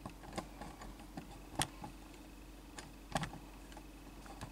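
Faint scattered clicks and light taps from plastic toy figures being shifted by hand on a tabletop. Two of the taps, about one and a half and three seconds in, are louder than the rest, and a faint steady hum runs underneath.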